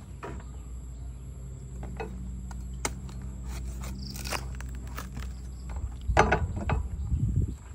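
Durian being opened by hand and knife: scattered clicks and crackles from the spiky husk and fibrous flesh, a short knife scrape about four seconds in, and louder handling thumps and rustling near the end.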